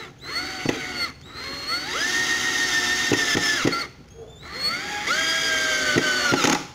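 Cordless drill driving an exterior deck screw into a wooden board without a pilot hole. The motor whines in three runs, a short one and then two long ones, rising in pitch as it spins up each time.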